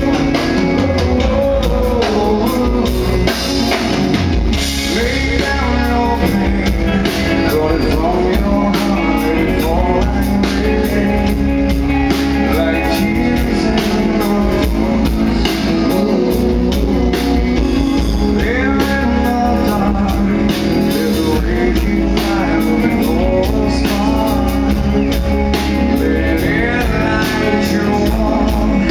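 Live rock band playing loudly, a male singer over electric bass, guitar and drums.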